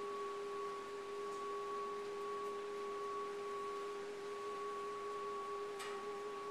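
Singing bowl sounding a sustained, steady ringing tone with a higher overtone above it, wavering slightly near the end.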